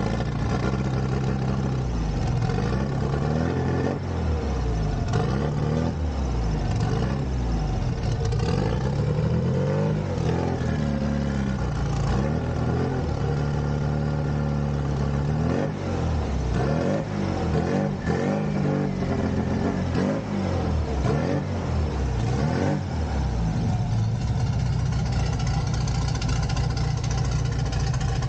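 Turbocharged air-cooled VW Beetle flat-four engine running as the car drives slowly, its revs rising and falling with the throttle, then settling to a steady idle for the last few seconds.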